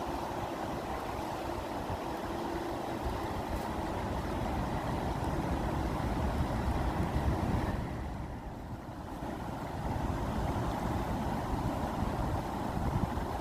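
Steady rushing of flowing water, heavy and low, easing off briefly about eight seconds in before picking up again.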